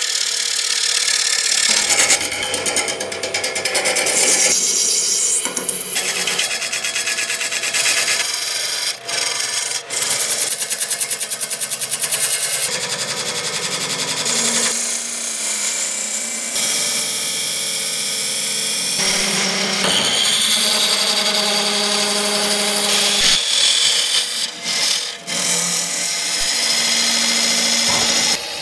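Wood lathe running while a gouge cuts and sandpaper rubs the spinning blank: a noisy cutting and rubbing sound over a steady motor hum. The sound changes abruptly many times as the clips cut from one stage of the turning to the next.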